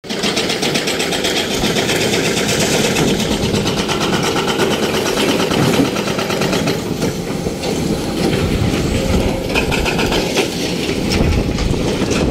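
SANY excavator's diesel engine running at work, with a fast, even clatter over a steady low drone.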